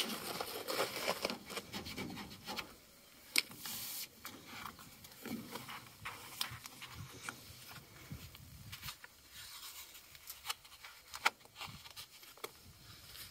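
A squeegee rubbed firmly over a paper-backed masking stencil on a truck door for the first couple of seconds, then scattered clicks, taps and light crinkling as the stencil's backing paper is handled and peeled.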